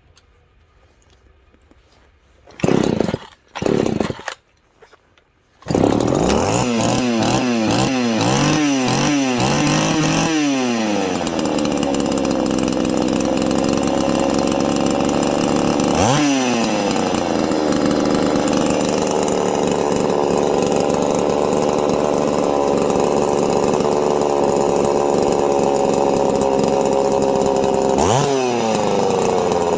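Ported Poulan 3400 two-stroke chainsaw being started: two short bursts, then the engine catches about six seconds in. It is revved up and down repeatedly, then runs steadily, with brief throttle changes about sixteen seconds in and near the end.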